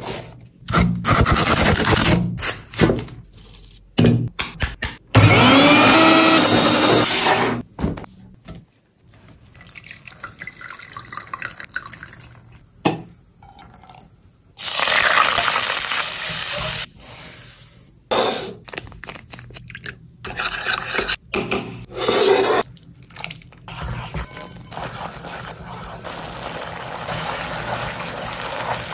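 A string of short, separately cut cooking sounds. It starts with a banana leaf being folded and handled. About five seconds in, a small motor whirs up in pitch for a couple of seconds. Liquid sounds follow, and near the end a spatula stirs a thick green paste in a pan.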